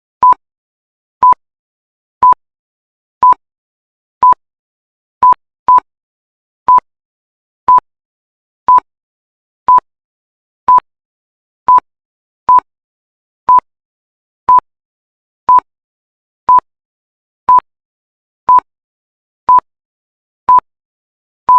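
Countdown timer sound effect: short, high electronic beeps of a single pitch, repeating about once a second as the seconds tick down.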